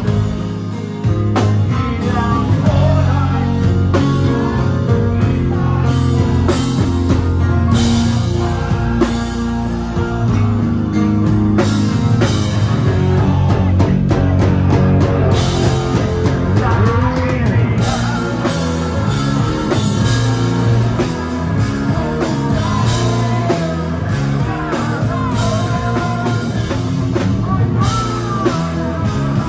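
Live rock band performing a song: a male lead singer over distorted electric guitar, bass guitar, keyboard and drum kit.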